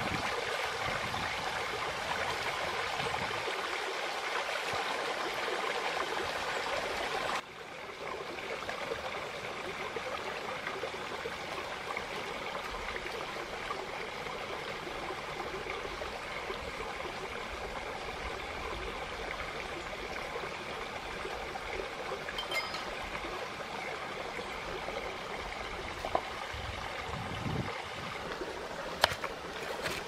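Small rocky stream running steadily, a constant rush of water. The level drops a little and suddenly about seven seconds in, and a few faint clicks come near the end.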